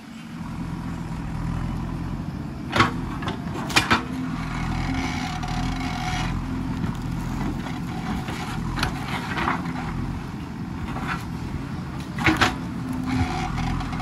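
JCB backhoe loader's diesel engine running steadily as the backhoe arm digs, with a higher hydraulic whine coming in twice as the arm works under load. Sharp knocks of the bucket and arm linkage stand out, one about three seconds in, a quick pair a second later, and another pair near the end.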